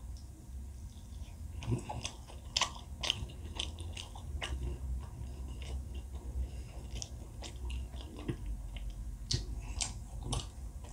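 Close-miked eating sounds: a person chewing and biting food, with many short, irregular mouth clicks.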